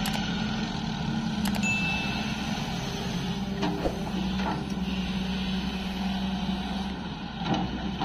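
CAT 320D3 GC hydraulic excavator's diesel engine running steadily with a low hum as the machine swings and digs, with a few brief knocks of the bucket and rock.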